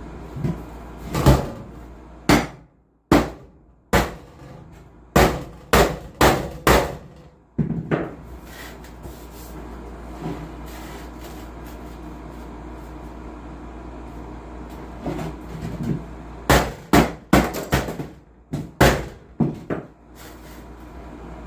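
Hammer striking sheet steel to bend it by hand toward a right angle without a metal bender. Sharp blows come in two runs: about ten in the first eight seconds, then a pause, and another quick run of about eight near the end.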